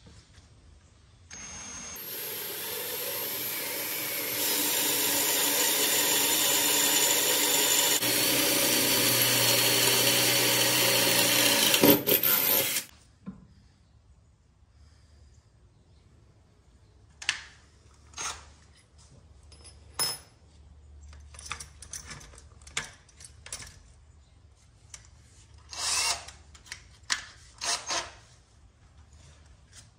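A handheld power tool running for about eleven seconds with a steady whine, growing louder in a couple of steps, then cutting off. It is followed by scattered knocks and clanks of metal parts being handled.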